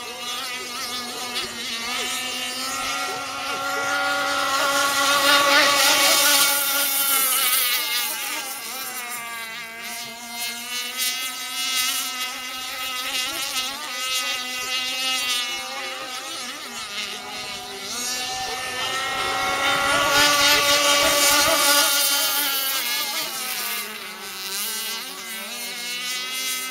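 Radio-controlled racing boat running at full speed with a continuous high engine note. The note grows louder and rises in pitch, then falls away as the boat passes close, twice, about 6 seconds in and again about 20 seconds in.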